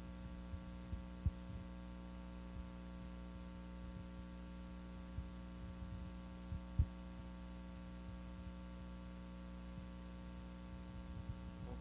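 Steady electrical mains hum from the sound system, with a few soft, low thumps scattered through it.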